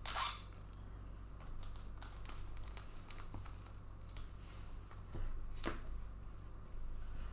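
Trading cards being handled and laid down on a playmat: a sharp rustling swish at the start, then light taps and slides of card, with another sharp swish about three-quarters of the way in.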